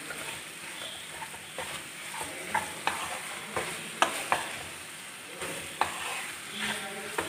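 Chicken pieces frying in spice masala in a non-stick pan, sizzling steadily, while a spatula stirs them and scrapes and knocks against the pan about once a second. The chicken is being stirred without pause over the heat until it dries out.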